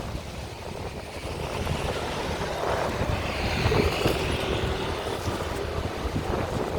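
Typhoon-force wind gusting and buffeting the microphone in a loud, continuous rushing rumble that builds through the middle.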